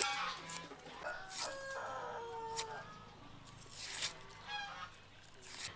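A chicken clucking, with one drawn-out call held for about a second, over short dry scrapes and rustles of onion skin being peeled away with a knife.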